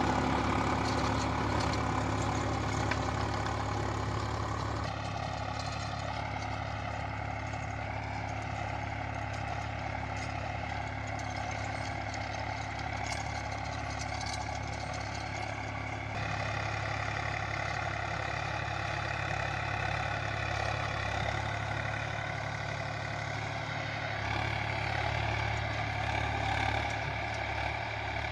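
Swaraj 744 XT tractor's three-cylinder diesel engine running steadily while it pulls a rotary tiller through the soil.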